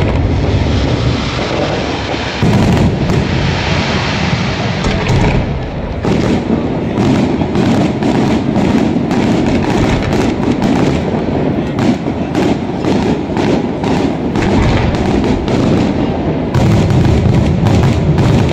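Fireworks display: shells bursting one after another with booms and crackles. A steady hiss runs through the first five seconds, then a dense run of rapid bangs follows from about six seconds in.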